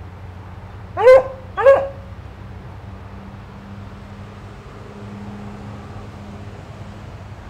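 A dog barks twice, two short, sharp barks less than a second apart, over a steady low hum.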